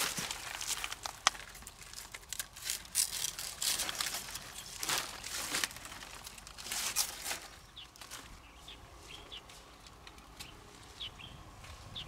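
Stiff pineapple leaves and shade netting rustling and crackling during harvesting, with several sharp clicks and snaps. In the second half it quietens and small birds chirp.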